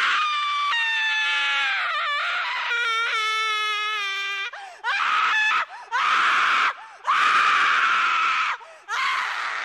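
A voice screaming: a long, wavering high-pitched scream, then four more loud screams in quick succession.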